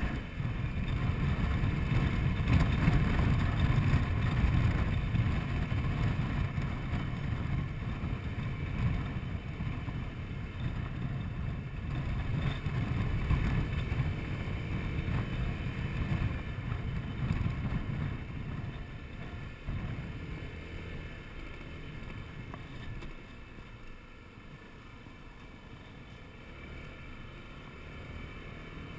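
Riding noise from a Honda Forza 125 scooter: wind rumbling on the microphone over the engine and road noise. It grows quieter over the last third as the scooter slows behind a car.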